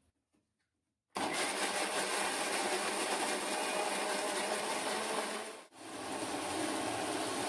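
Electric mixer grinder running, grinding coconut with a little water in its stainless steel jar. The motor starts suddenly about a second in, cuts out for a moment about two-thirds of the way through, then runs again.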